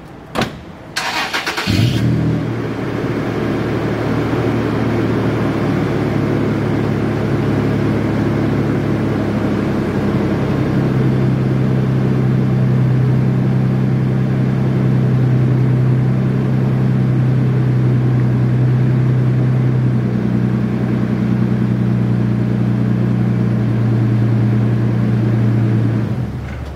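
Toyota FJ Cruiser's 4.0-litre V6 cold-started: after a single knock, the starter cranks briefly about a second in, the engine catches and settles into a steady fast cold idle. The sound falls away just before the end.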